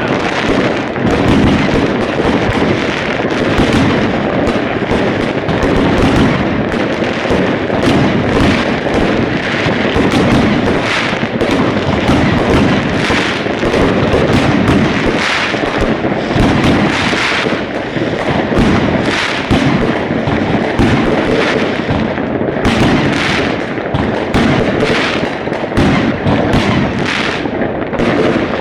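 Fireworks display in a dense, continuous barrage: overlapping bangs and crackles follow one another many times a second with no let-up.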